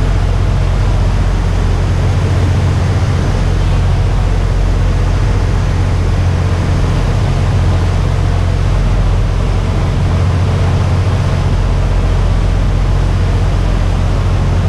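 Steady, loud low rumble of a boat under way, with an even rushing noise over it.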